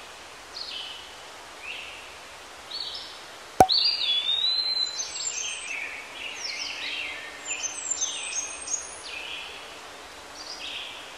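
Bird chirps and whistles, many short falling notes that are busiest in the middle, with one sharp click about three and a half seconds in.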